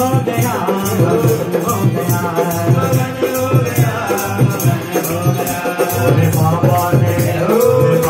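Hindu devotional bhajan to Shiva: a wavering sung or played melody over a pulsing bass, with a shaker keeping a steady rhythm.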